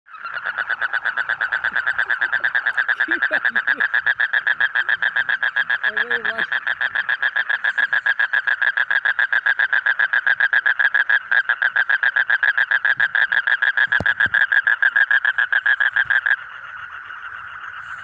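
A yellow-green male frog calling with its throat sac inflated: one long, unbroken, rapidly pulsed trill. Near the end it drops suddenly to a fainter trill.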